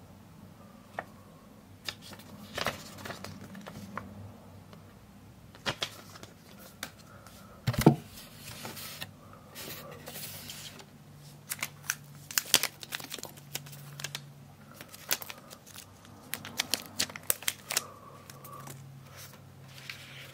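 Cardboard box and Echo Dot packaging being handled by hand: scattered clicks, taps and short rustles, with one loud knock about eight seconds in.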